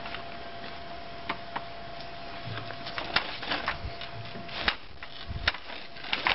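Wheels of a toddler's four-wheeled ride-on toy rolling and rattling over brick paving stones, with irregular clicks and knocks as they cross the joints.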